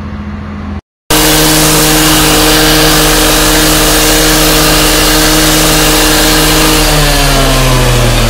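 Handheld power disc cutter running at high speed, its disc cutting through metal with a steady whine over loud grinding noise. It starts abruptly about a second in, and its pitch drops near the end as the motor slows.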